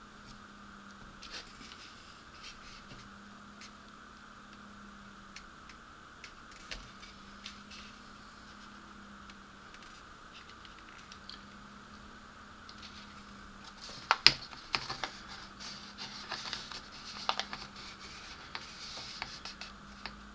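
Hands handling plastic model-kit parts and masking tape: faint scratches and small clicks at first, then a run of louder sharp plastic clicks and rustling from about 14 seconds in. A faint steady hum lies underneath.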